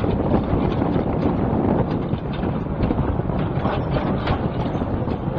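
Excavator's diesel engine running steadily, with wind buffeting the microphone.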